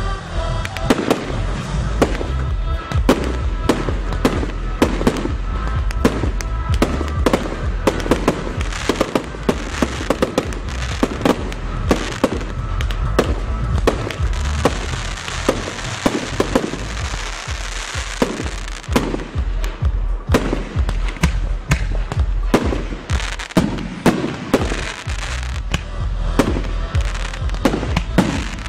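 Fireworks display: shells launching and bursting in quick succession, many sharp bangs with a denser crackling stretch about halfway through, over music with a steady bass.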